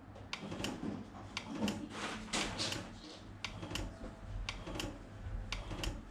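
Plastic RO booster-pump pressure switches being handled: a run of short, light clicks and knocks, often in pairs, over a low steady hum.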